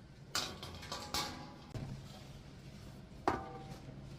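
Kitchenware being handled on a store shelf: three sharp knocks and clinks, some with a short ring, over a low steady hum.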